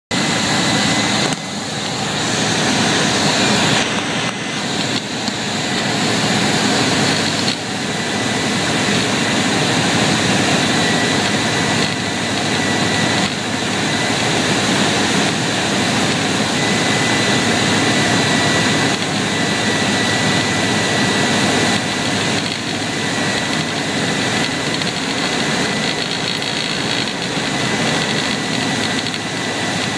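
Single-engine propeller airplane's piston engine and propeller running steadily, heard loud inside the small cockpit, during the approach to land.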